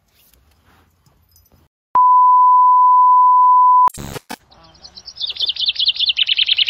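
A steady, loud electronic beep at one pitch, held for about two seconds and cut off by a sharp click. About a second later a bird starts chirping rapidly in quick high repeated notes, growing louder near the end.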